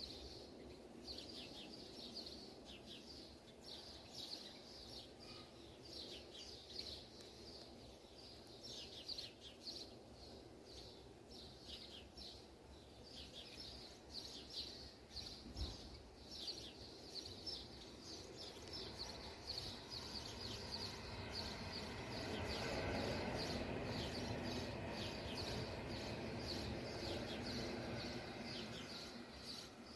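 A thick pot of haleem cooking as a metal ladle stirs it, with a steady run of short, high, chirp-like ticks throughout. The stirring and simmering noise grows louder from about two-thirds of the way in, then eases near the end.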